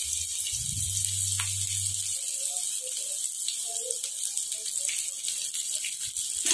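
Chopped onions sizzling in hot oil in a kadai, with mustard seeds already spluttered in it: a steady frying hiss. A low hum runs under it for the first two seconds.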